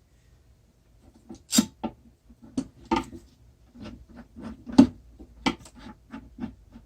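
A string of about a dozen irregular sharp knocks and clicks from wood and tools being handled on a workbench, the loudest about a second and a half in and just before five seconds in.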